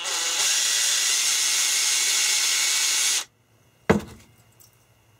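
Cordless drill spinning a chamfering bit against the inside edge of a small aluminium part: a steady grinding hiss for about three seconds that cuts off suddenly. The bit is almost dull. About a second later comes a single sharp knock.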